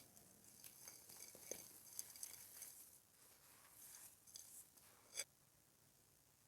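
Dry, dusty clay pot crumbling: faint, fine crackling and grit through the first few seconds, a few more crackles later, and one sharper crack about five seconds in.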